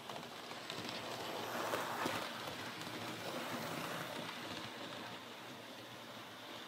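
Model railway locomotive running along the track, its motor and wheels whirring. It grows louder as it passes close by about two seconds in, then fades away.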